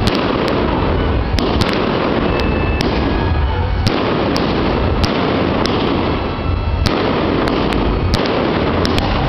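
Aerial fireworks display going off without a break: a dense run of bangs and many sharp crackling pops over a steady low rumble.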